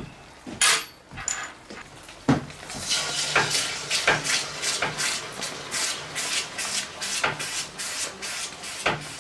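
Hot case-hardened steel test pieces quenched in a container of water. A few clicks and a knock of tongs and metal come first. From about three seconds in, the quench hisses and sizzles in regular surges, about two a second.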